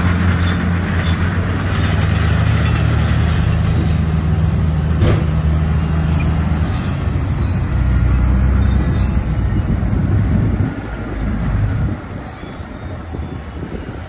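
Heavy diesel engine of earthmoving machinery running steadily, with one sharp knock about five seconds in. The engine note shifts lower around seven seconds in, and the sound drops off in two steps near the end.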